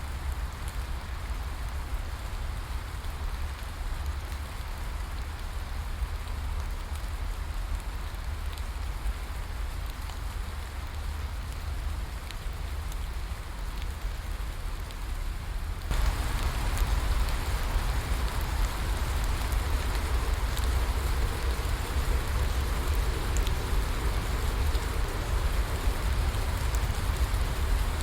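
Rainforest rain falling steadily as an even hiss. A little past halfway it suddenly becomes louder and heavier.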